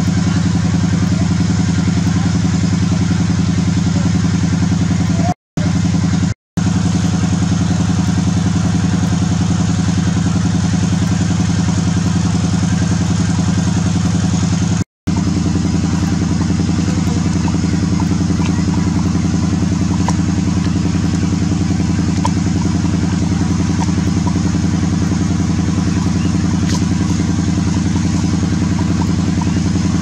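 A steady engine drone, running at an unchanging pitch and level, drops out abruptly three times for a fraction of a second.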